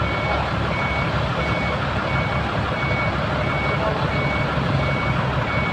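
Back-up alarm beeping steadily, one short high beep about every three-quarters of a second, over a heavy engine running low as a large Toyota forklift is driven onto a transport truck's bed.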